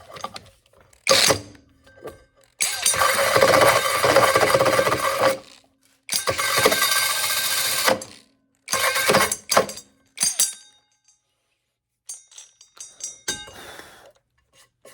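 Mellif 12-volt cordless drill driving a 5-inch hole saw into wood in three bursts of two to three seconds each, the saw teeth grinding in the cut. A sharp knock about a second in, and a few light clinks near the end.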